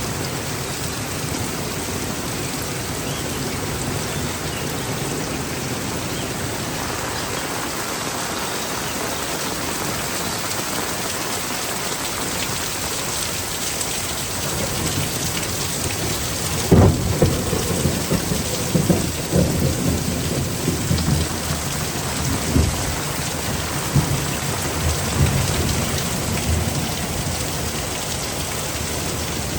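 Heavy rain pouring steadily. About seventeen seconds in, a sharp thunderclap cracks, then the thunder rolls on in low, uneven rumbles for around ten seconds before fading back under the rain.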